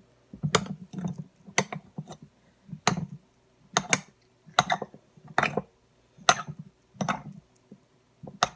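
Metal fork mashing firm, not-quite-room-temperature butter in a ceramic bowl: a clink of the tines against the bowl about once a second, sometimes two close together, each with a soft low thump as the fork presses into the butter.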